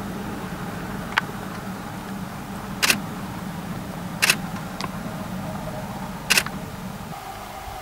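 Camera shutter firing three times, a second and a half to two seconds apart, each a quick double click, with a couple of fainter clicks between. Under it a low steady hum drops away near the end.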